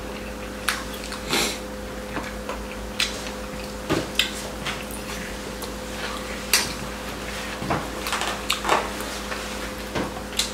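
Chopsticks clicking and scraping against small bowls while two people eat braised chicken, with short irregular eating noises. A faint steady hum runs underneath.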